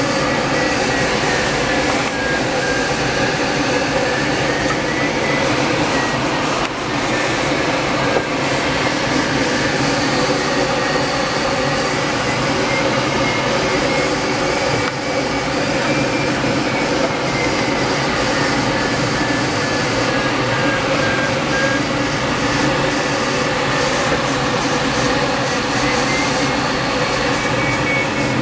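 Steady cockpit noise of a small aircraft in flight: a constant drone with a thin high tone that slowly wavers up and down.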